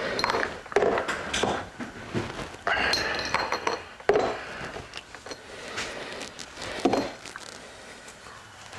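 Metal engine parts and hand tools clinking and knocking irregularly as a Harley-Davidson Ironhead engine is taken apart, with sharp knocks about four and seven seconds in.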